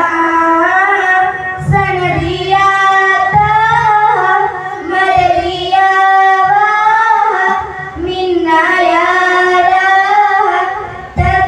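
Girls' voices singing a qaseeda, an Islamic devotional poem, through microphones and a PA, with long held notes that waver in pitch.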